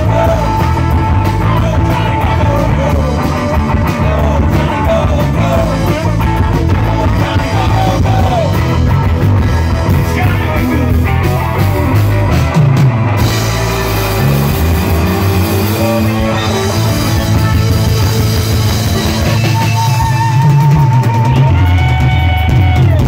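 Live rock band playing: electric guitar, bass guitar, drum kit and keyboard, with a man singing.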